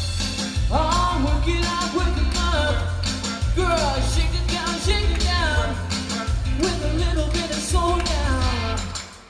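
A Motown song: singers over a band backing with a heavy, pulsing bass line. The music drops away near the end.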